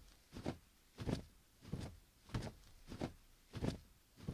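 Footsteps walking at a steady pace, about one and a half steps a second, each a dull thud with a crisp scuff on top.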